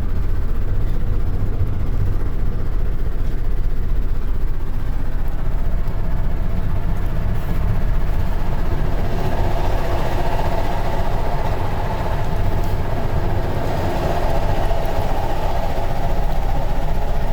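Steady low rumble of a large running vehicle, with a higher hum joining in about halfway through.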